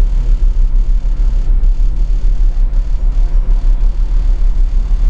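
A steady low rumble, with no other distinct sound.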